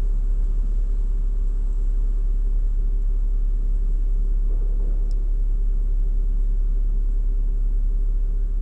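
Steady low rumble with a constant hum, the sound of an idling vehicle; a faint brief tick about five seconds in.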